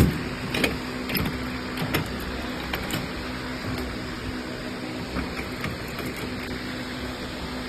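Handling knocks and clicks on a vending machine's door and metal cabinet, several in the first three seconds, as the door is closed to check clearance for a newly fitted antenna. A steady low hum sounds beneath them.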